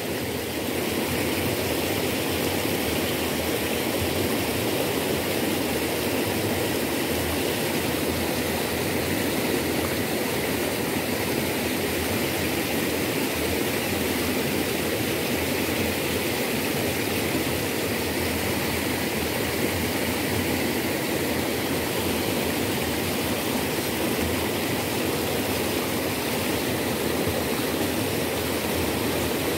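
Forest stream rushing steadily, a constant, even wash of flowing water.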